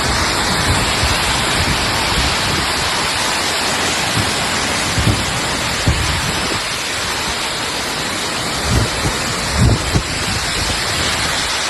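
Torrential rain pouring down in a loud, steady hiss, with a few low thumps about five, six, nine and ten seconds in.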